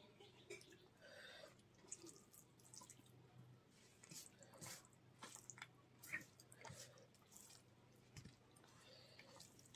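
Faint, sticky wet squishes and small clicks of fingers mixing and mashing rice with fish curry gravy on a banana leaf, coming in short irregular bits.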